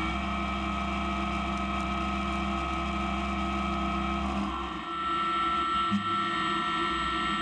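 Maho MH 600 E CNC milling machine running with steady electric whining tones from its drives while the table positions the workpiece; a lower hum underneath drops away about four and a half seconds in.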